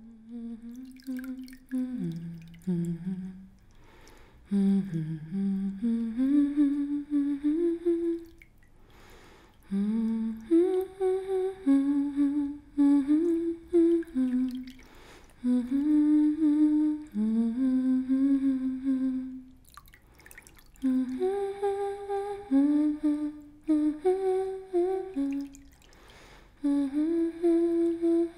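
A woman humming a slow, gentle melody without words, in short phrases broken by brief pauses.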